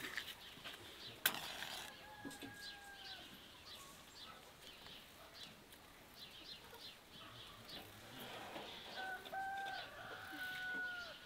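Faint drawn-out chicken calls that each drop in pitch at the end, one about two seconds in and three more near the end, with a sharp click about a second in and small faint clicks throughout.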